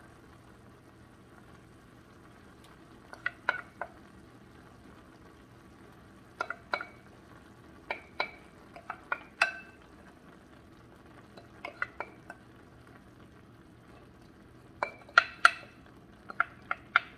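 Wooden spoon knocking and scraping against a glass bowl in several clusters of sharp, briefly ringing taps as crumbled soaked pecans are knocked out into a skillet. A low sizzle of peppers and onions sautéing runs underneath.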